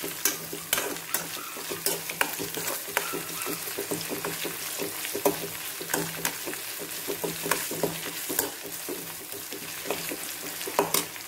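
Sliced onions, ginger, garlic and curry leaves sizzling in hot oil in a metal pan, stirred with a metal spatula that scrapes and clinks against the pan many times over a steady frying hiss.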